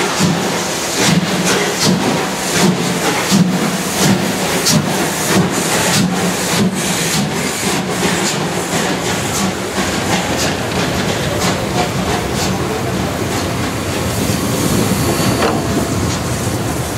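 Two-cylinder steam locomotive of class 01.5 pulling away and passing close by. Its exhaust chuffs come about one every 0.8 s at first and quicken to about two a second, then blend after about eight seconds into a steady hiss and rumble as the engine goes by.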